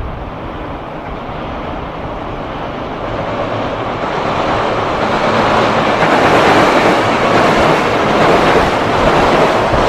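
Freight train approaching, its rolling noise on the rails building steadily louder over several seconds.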